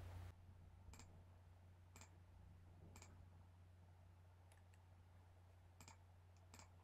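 Faint computer mouse button clicks, several of them, about one a second at first and then irregular, over a low steady hum in near silence.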